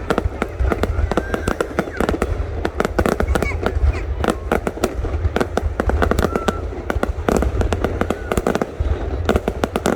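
Aerial fireworks display: a rapid, unbroken barrage of bangs and crackles, several a second, over a continuous deep booming rumble.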